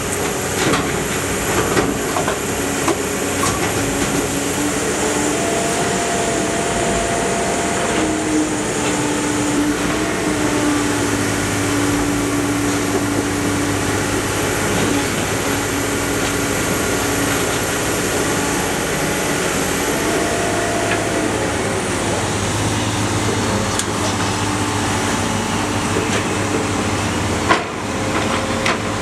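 Iron Pack scrap baler running: a steady, loud mechanical din with a whine that comes and goes and scattered metallic clanks, and one sharp bang near the end.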